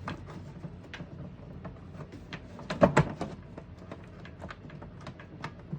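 Portable typewriter's case cover and clasps being worked shut: irregular small clicks and knocks as the clasps are pushed to grip underneath, with a louder clack about three seconds in.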